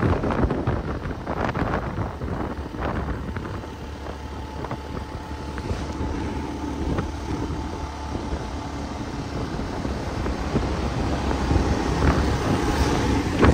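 Motorcycle running at road speed, its engine under steady wind noise on the microphone.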